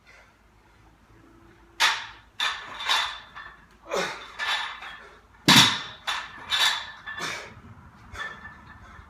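Loaded 135-lb barbell clanking during squat cleans: a run of sharp metallic clanks and rattles as the iron plates and collars jolt on the steel bar, the loudest about five and a half seconds in, with a short ringing after the strikes.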